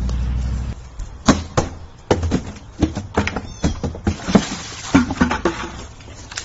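A quick run of sharp knocks and thuds as a cardboard box is thrown and kicked about on a concrete patio and a plastic bucket is knocked over, with a few short cries among them in the middle.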